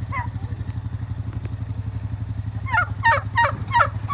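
Turkey gobbling: a rapid, warbling run of calls that starts about two and a half seconds in, over a tractor engine idling steadily.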